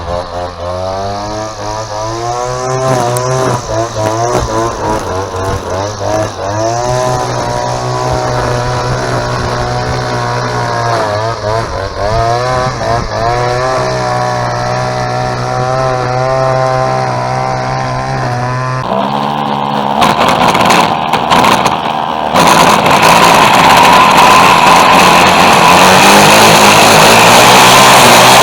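Two-stroke string trimmer (whipper snipper) engine running, its revs rising and falling as the throttle is worked. About two-thirds of the way through the sound changes, and near the end it is held louder and steadier at high revs.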